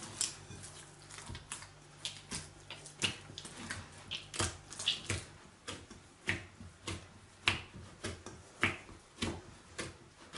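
Hands kneading soft yeast dough in a glass bowl: a run of short, sharp smacks, about two a second, in an uneven rhythm.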